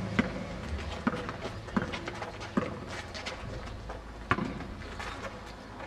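Basketball bouncing on a concrete court, a handful of sharp thuds roughly a second apart, the loudest about four seconds in, with players' footsteps scuffing and running on the court.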